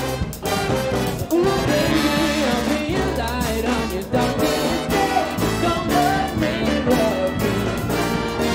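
Big band playing a pop song live, with trumpets, trombones and saxophones over drums and the rhythm section, and a singer's voice over the band.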